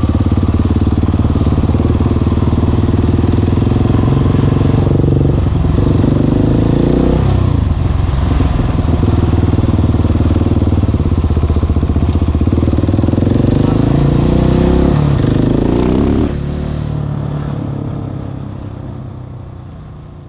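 Supermoto motorcycle engine pulling hard under throttle, with brief dips in pitch about five, seven and fifteen seconds in. The sound fades away over the last four seconds.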